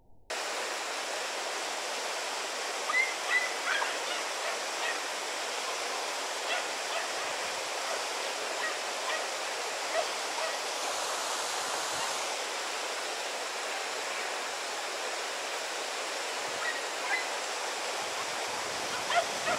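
Steady rush of flowing river water, with a few faint short calls on top about three seconds in and again near the end.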